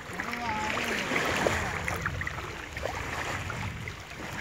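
Shallow sea water sloshing and splashing around people wading: a steady rushing noise, brightest about a second in, with a few small clicks.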